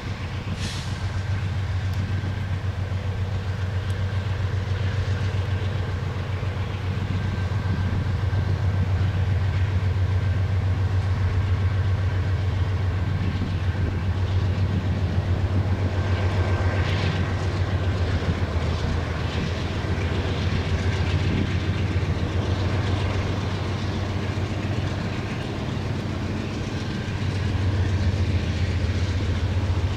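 Two CSX diesel locomotives pulling a freight train across a bridge, engines running with a steady low hum, with boxcars rolling along behind them near the end.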